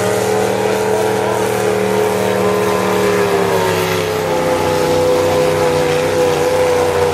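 Several full-size demolition derby cars' engines held at high revs as the cars shove against each other, a loud, steady drone whose pitch sags slightly near the end.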